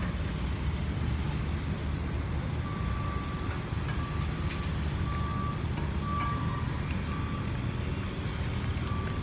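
Reversing alarm beeping on and off over a steady low engine rumble.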